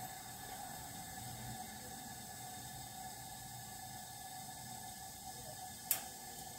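Faint steady hiss of a natural-gas Modine unit heater's lit burner, with a single sharp click near the end.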